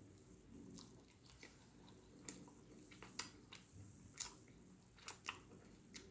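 Faint close-miked chewing of tender baked turkey wing meat, with a string of sharp wet mouth smacks and clicks, the strongest ones in the second half.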